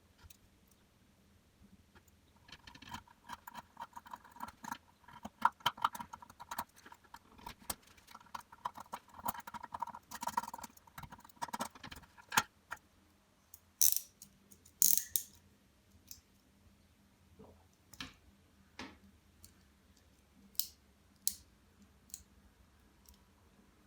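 Hand tools working on leather, most likely trimming rounded corners: about ten seconds of quick, repeated scraping cuts, then two sharper strokes and scattered clicks and taps as tools are handled.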